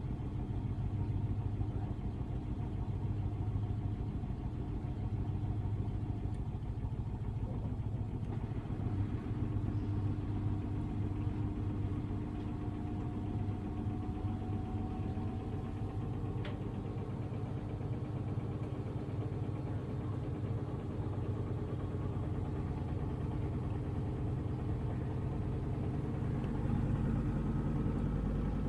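Samsung Ecobubble washing machine spinning its drum on a quiet spin, driven by its digital inverter motor: a steady low hum with a faint whine. The whine rises gently partway through, and near the end a higher whine comes in as the rumble grows slightly.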